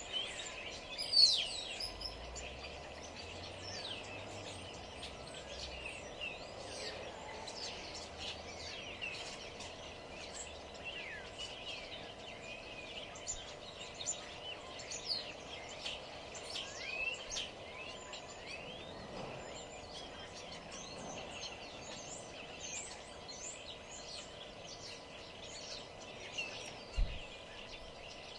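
Many small birds chirping and calling in a dense, overlapping chorus of short, quick notes, over a steady background hum. One call about a second in stands out louder, and a brief low thump comes near the end.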